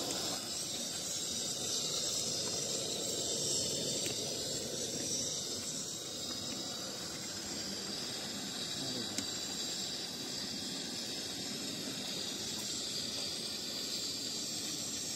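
Steady hiss of a portable gas burner running, over the broad rush of seawater flowing past.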